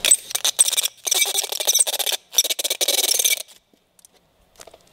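Loud, rough scratching and rubbing noise close to the microphone, in three stretches with short gaps, stopping about three and a half seconds in; after that only a few faint clicks.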